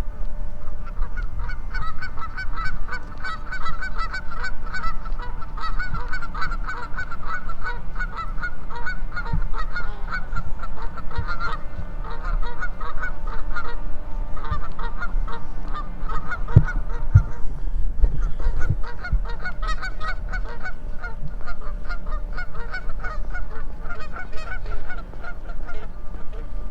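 A flock of geese honking continuously, many overlapping short calls.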